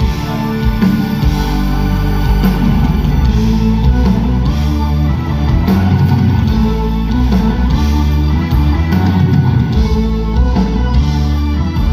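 Live band music with electric guitar, drums and keyboard, played loud through the PA and heard from within the audience.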